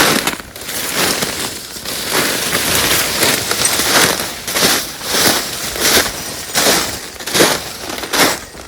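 Footsteps crunching through dry leaves and undergrowth at a steady walking pace, about one and a half steps a second.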